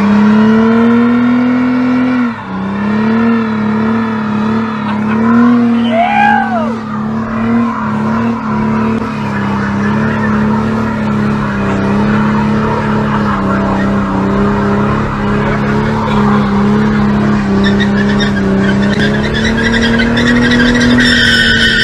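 Ute doing a burnout: its engine held at high revs with the rear tyres spinning and squealing on the road, the revs dipping briefly about two seconds in. A short high squeal rises and falls about six seconds in.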